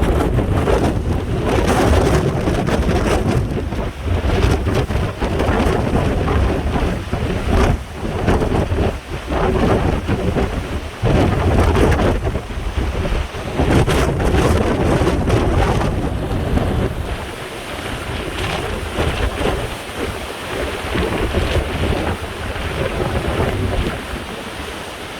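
Typhoon-force wind buffeting the microphone in heavy rumbling gusts over crashing storm waves. The buffeting eases about two-thirds of the way through, leaving the wind and surf.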